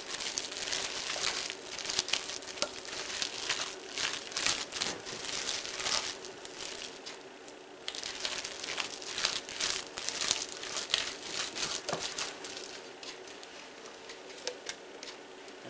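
Silicone spatula stirring tuna salad with mayonnaise in a glass mixing bowl: irregular wet scraping and squishing strokes, thinning out near the end.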